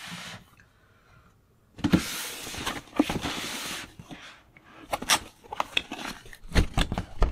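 Cardboard box being handled and opened: a long rasping pull about two seconds in, then clicks and knocks of the flaps and a few heavy thumps of the box on the table near the end.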